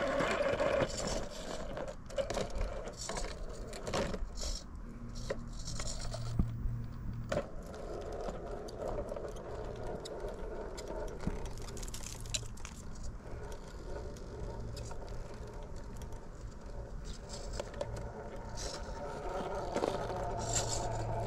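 Fusion SE 1800KV brushless motor and gear drivetrain of a Traxxas TRX4 RC rock crawler whirring in several stretches of throttle, with tyres scrabbling and clicking on rock as the truck works over a hard ledge with its bumper dug in.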